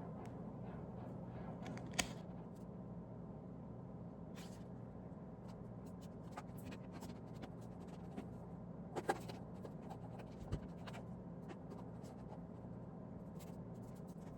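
Scattered light scratching and small taps from hands working at a desk, over a steady low room hum, with a few sharper clicks about two seconds in and again near nine and ten and a half seconds.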